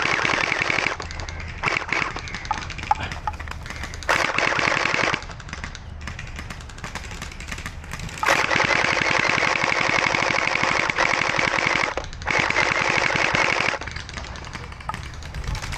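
Electric gel blasters firing full-auto bursts of rapid shots. There is a short burst at the start and another about four seconds in. A long burst of about five seconds comes from about eight seconds in, with fainter rapid fire in the gaps.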